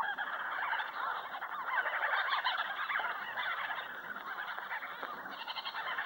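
A colony of bee-eaters calling together: a dense, overlapping chatter of many short chirps.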